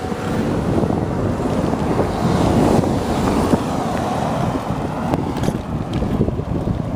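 Wind buffeting the microphone of a camera carried on a moving bicycle: a steady, loud rumbling rush.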